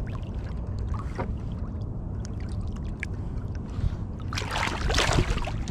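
Water sloshing and dripping beside a kayak, with a steady low rumble, then a louder splash about four and a half seconds in. The splash comes from a striped bass held in the water for release.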